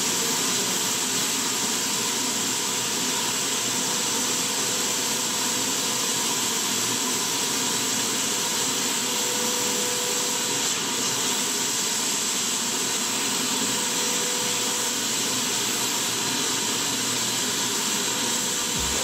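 Electric HVLP paint sprayer running: its floor turbine unit blows air through the hose and spray gun with a steady hiss and a faint even whine.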